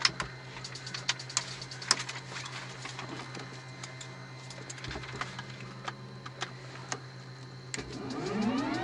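Cockpit toggle switches on a Bell 206B-3 JetRanger clicking one after another over a steady low hum during pre-start checks. Near the end the Rolls-Royce 250-C20J turbine starts to spool up, a rising whine that grows louder.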